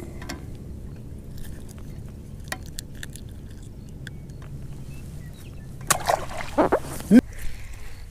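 A few loud splashes and sloshes of water about six to seven seconds in, as a small largemouth bass goes back into the lake, over a steady low rumble.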